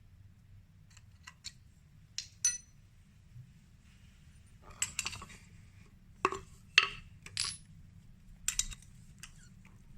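Metal tools and small metal parts clinking and knocking as they are handled and set down: about a dozen sharp clinks, some ringing briefly, the loudest about seven seconds in.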